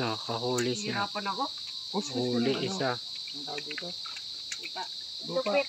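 A steady, high-pitched chorus of insects shrilling without a break, with voices talking in short bursts over it.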